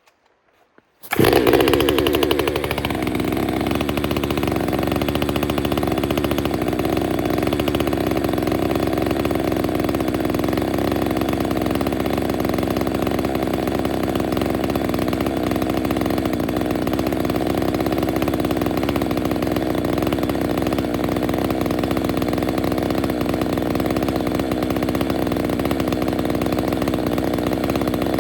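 Ported Stihl MS 462 two-stroke chainsaw starting about a second in and running high for a moment. It then settles into a steady, even run.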